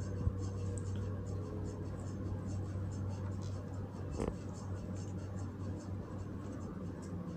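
Damp cloth rubbing dried face pack off the skin in quick repeated scratchy strokes, over a steady low hum, with one small knock about four seconds in.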